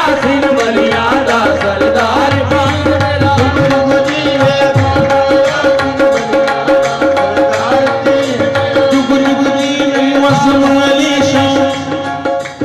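Live qawwali music: tabla drumming under long held harmonium tones, with a voice singing over them. The music drops a little in level near the end.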